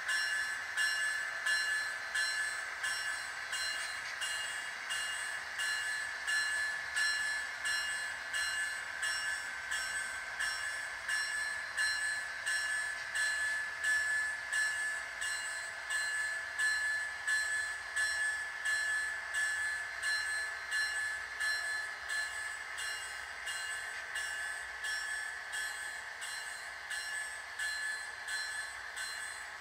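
Model freight train rolling past on layout track: a steady high whine with an even clicking rhythm of about two a second.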